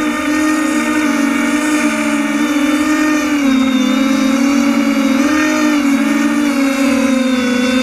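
Drone's electric motors and propellers whining steadily in flight, heard from on board, with a pitch that wavers slightly up and down as the motors adjust.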